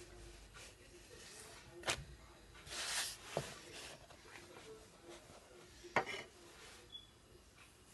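Samosa pastry sheets being handled and folded on a wooden board: a few light knocks and taps against the board, with a brief papery rustle about three seconds in.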